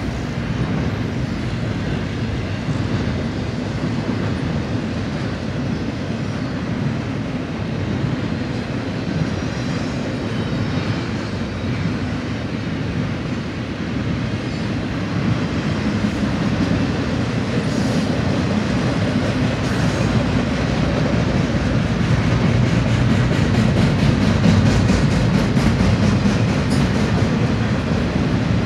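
Double-stack intermodal container cars of a BNSF freight train rolling past: a steady rumble of steel wheels on rail with some clatter, growing a little louder in the second half.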